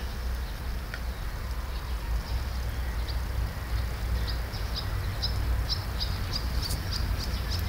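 Small bird chirping outdoors, a quick run of short high chirps about two to three a second, starting about three seconds in, over a steady low rumble.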